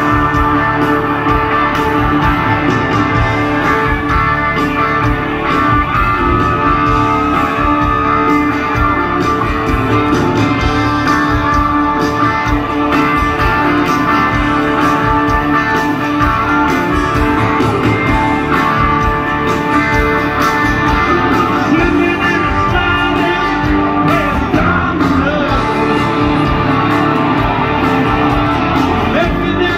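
Live country-rock band playing loudly through an amphitheatre sound system, with electric guitar and drums and a man singing.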